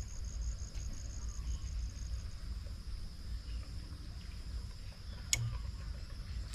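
Insects calling: a fast pulsing high-pitched chirp that stops about two seconds in, over a steady high drone. A low rumble runs underneath, and there is a single sharp click about five seconds in.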